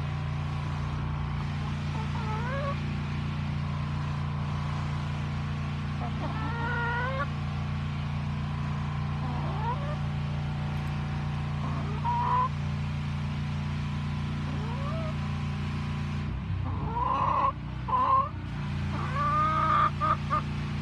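A sick chicken giving short rising calls every few seconds, coming closer together near the end, over a steady low hum. A burst of rustling and knocking comes about two-thirds of the way through.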